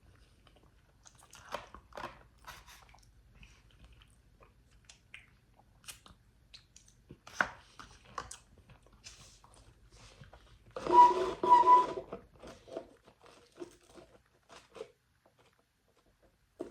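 A person chewing and biting food close to the microphone: scattered wet mouth sounds and small crunches. About eleven seconds in comes a louder, denser sound of about a second and a half.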